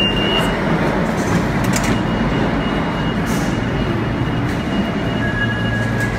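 Subway station din: a loud, steady rumble of train noise, with a thin high squeal through the middle and a lower one near the end.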